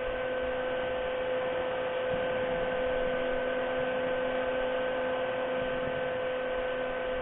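Steady electrical hum with a few held tones from an OTC MIG welding machine, switched on and idling with no arc struck.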